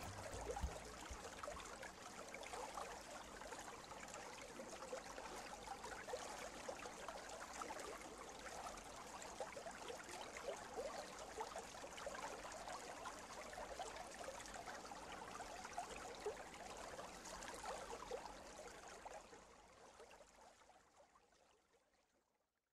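Faint running water trickling and bubbling, fading out near the end.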